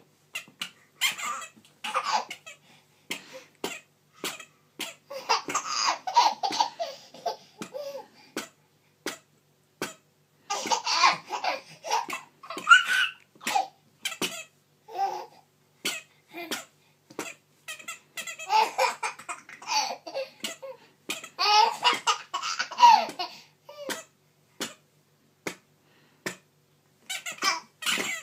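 A toddler laughing in repeated bursts of a couple of seconds each, with short clicks scattered in between.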